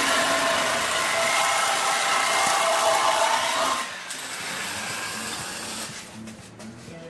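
Hand-held plasma cutter cutting through the steel frame rail of a Chevy S10 front clip: a loud, steady hiss with a faint buzz that stops about four seconds in, leaving a quieter hiss.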